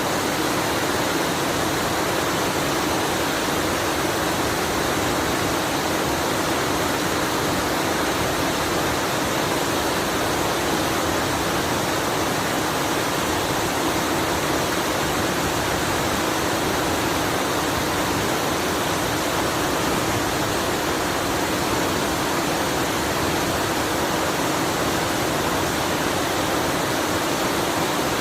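Waterfall rushing: a steady, unbroken noise of falling water that does not change.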